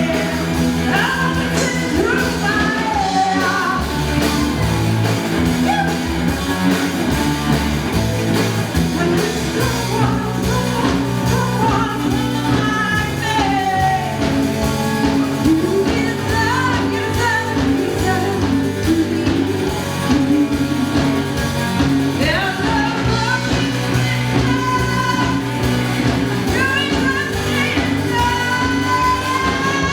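Live rock band playing: drums and bass keep a steady beat under a bending lead melody that could be voice or lead guitar.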